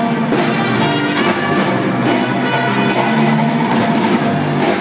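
Live wind band playing, brass and reed melody over a steady drum beat.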